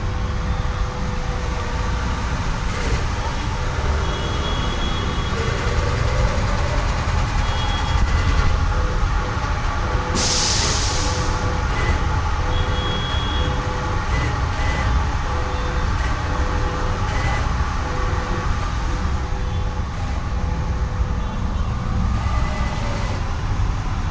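CNC corner cleaning machine for window frames running steadily with a low rumble, with a loud hiss of compressed air lasting about a second and a half roughly ten seconds in.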